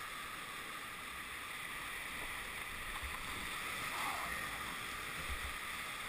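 Steady rush of whitewater pouring over boulders in a mountain creek.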